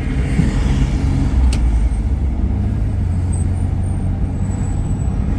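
Car on the move: a steady low rumble of road and engine noise, with a single light click about a second and a half in.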